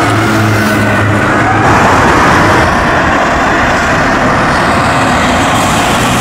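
Rubber-tyred metro train passing. Its traction motors whine in a pitch that falls a little during the first second or so, then an even rush of running noise takes over, mixed with road traffic.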